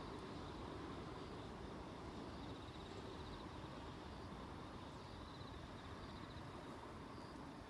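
Faint outdoor ambience: a steady low rumble like distant traffic, with faint, repeated high chirping trills.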